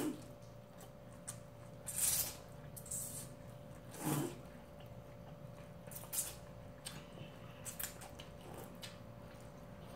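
Cold naengmyeon noodles being slurped, with wet chewing and mouth sounds in several short bursts a second or two apart, the loudest about two seconds in. A faint steady hum runs underneath.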